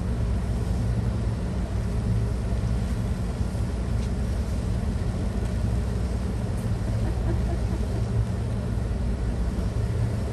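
Codecasa 51 motor yacht's engines running with a steady low hum as it eases stern-first into its berth.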